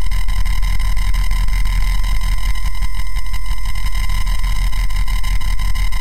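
A steady, loud low rumbling drone with faint steady tones above it, unbroken and unchanging.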